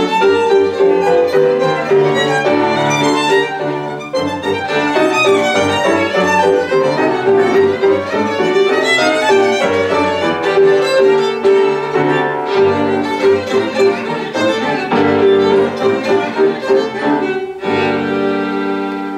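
Violin and grand piano playing a classical sonata live, the violin's line running over a piano accompaniment. Near the end both land on a held closing chord that begins to die away.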